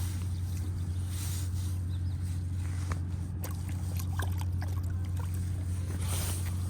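A steady low hum with no change in pitch, with a few faint clicks and taps over it.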